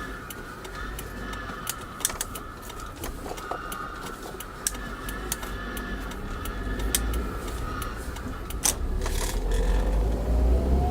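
Toyota Avanza with a manual gearbox, heard while driving: a steady low rumble and a wavering whine, with scattered sharp clicks and rattles. Near the end a second whine rises steadily in pitch.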